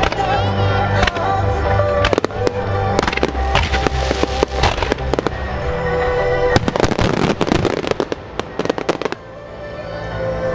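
Starmine fireworks: rapid volleys of shells bursting and crackling over music, with the densest barrage from about six to nine seconds in. The bursts die away near the end, leaving the music.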